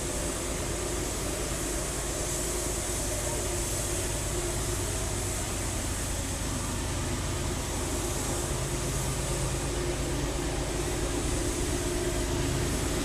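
Diesel freight train running, a steady rumble with a low engine drone that slowly grows louder as the locomotive approaches.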